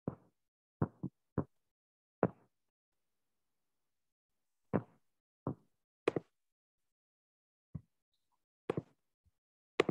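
About a dozen short, scattered clicks and knocks of computer mouse clicks and key taps, picked up through a video call. Each one cuts off sharply with dead silence between.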